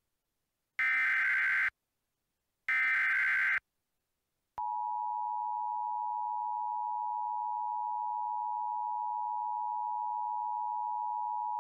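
Emergency Alert System signal: two bursts of screechy digital header data about a second each, then the steady two-tone EAS attention signal starting about four and a half seconds in, announcing an incoming emergency alert.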